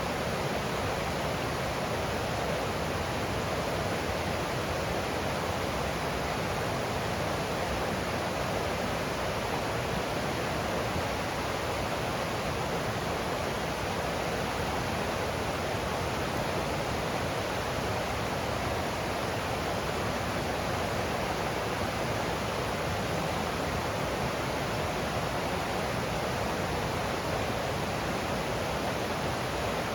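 Forest stream rushing over rocks, a steady even rush of water with no change.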